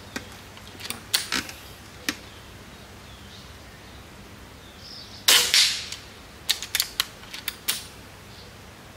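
A Seneca Eagle Claw .25 calibre PCP air rifle fires one shot on its low power setting, a sharp report about five seconds in. A few light clicks come before the shot and a quick run of clicks follows it.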